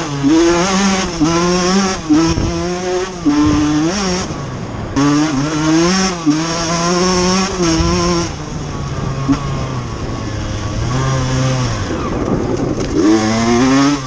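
1996 KTM 125 SX's single-cylinder two-stroke engine running on the move, its pitch rising and falling with the throttle. It drops lower for a few seconds past the middle, then climbs again near the end.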